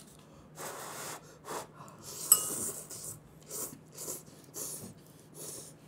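Slurping of hot jjapagetti black-bean noodles in a run of short, airy pulls with breaths through the nose, and a single clink of metal chopsticks against a ceramic bowl a little over two seconds in.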